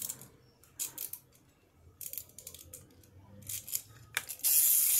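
Small plastic toy figures clicking and scraping on a tile floor as they are handled by hand, in a few short bursts. About four and a half seconds in, a loud steady hiss starts.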